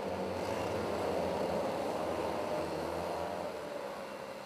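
A pack of racing karts' small engines running together as they pass at low speed, lining up for a rolling start; loudest about a second in, then fading as they move off.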